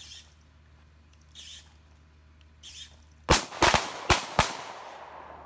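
Handguns firing in a ragged volley from several shooters: about five sharp shots within about a second, starting about three and a half seconds in, each followed by a trailing echo.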